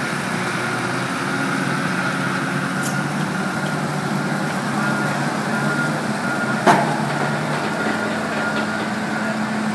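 Large yard forklift's engine running steadily as it drives with a fishing boat raised on its forks. A single sharp knock comes about two thirds of the way through.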